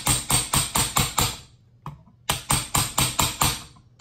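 Brass-headed hammer tapping on a large punch, driving a T-nut down into a rifle stock: two quick runs of light strikes, about eight a second, with a short pause between them.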